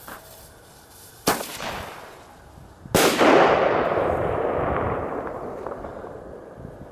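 Fireworks going off: one sharp bang, then about two seconds later a louder bang whose sound fades out slowly over a few seconds.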